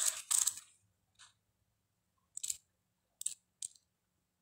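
Paper handling: several short, crisp rustles and swishes, about five in all, with the first and longest right at the start, as a tarot deck's guidebook pages are leafed through.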